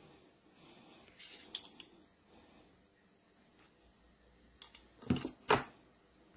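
Handling noise of objects being moved by hand: faint rustling with a few small clicks, then two louder brief scraping knocks about five seconds in, half a second apart.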